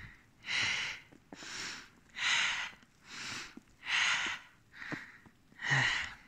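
A person walking through snow: an even rhythm of noisy swishes, a little more than one a second and alternately stronger and weaker, with faint crunches between them.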